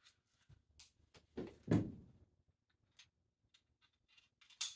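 Handling clunks and clicks of a cordless staple gun being loaded with staples: two heavier knocks about one and a half to two seconds in, lighter ticks after, and a sharp click near the end.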